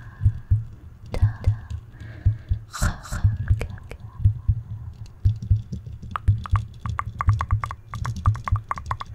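Close-up ASMR whispering and mouth sounds over a low, repeated thudding that comes two or three times a second. About six seconds in, a quick run of short clicks begins.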